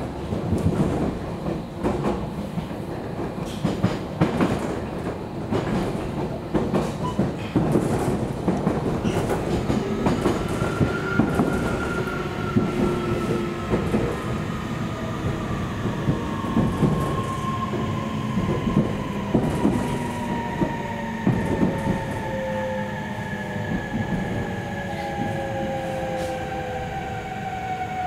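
Interior running sound of a JR Kyushu 811 series electric train's motor car: wheels clatter over rail joints, and from about a third of the way in the VVVF inverter and traction motors whine in several tones that slowly fall in pitch as the train slows for its stop.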